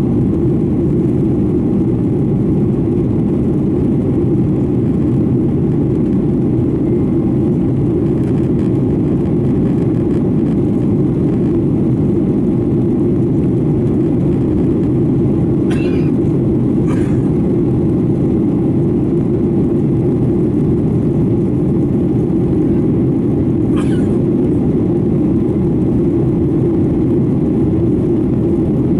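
Steady roar inside the cabin of a Boeing 737-900ER, from its CFM56-7B turbofan engines and the airflow past the fuselage, with a few short clicks.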